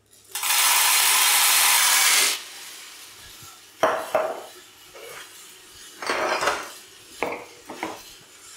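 Green coffee beans poured into the hopper of a Hottop KN-8828B-2K+ drum roaster, a loud rushing rattle lasting about two seconds. The beans then tumble in the rotating drum, turned over by the stirring paddle, as a softer rattle with several louder bursts.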